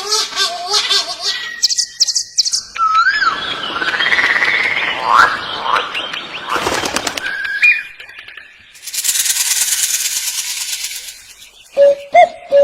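Calls of several different birds, spliced one after another: chirps and whistled notes, a long harsh noisy stretch with rising glides in the middle, a high buzzing rasp later, and a few short sharp calls near the end.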